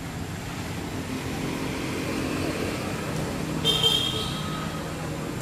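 Steady hum of a motor vehicle engine, swelling a little toward the middle, with a brief high-pitched tone just before four seconds in.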